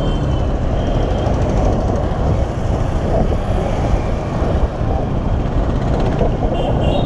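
Bajaj Pulsar NS200 motorcycle with an aftermarket exhaust being ridden steadily, its engine and the wind making a loud, even rush of noise.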